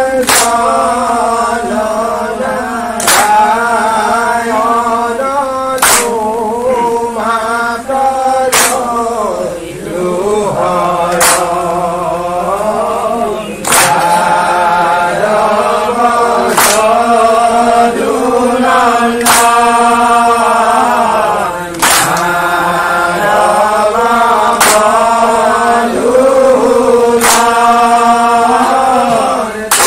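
A group of men chanting an Assamese devotional nam in unison, voices holding and gliding between long notes. The whole group claps together once about every two and a half to three seconds, marking the beat of the chant.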